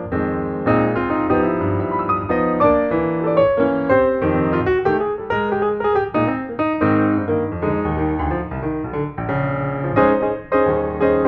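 Background piano music, a steady run of notes with a light melody.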